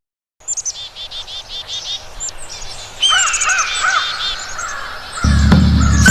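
Birdsong: several birds chirping in quick runs of short repeated calls. Near the end, music with a low drum and a flute comes in.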